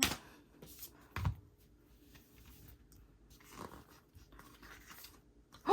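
Quiet handling of a K-pop album and its paper contents: light paper rustling and scattered soft clicks, with a dull thump about a second in.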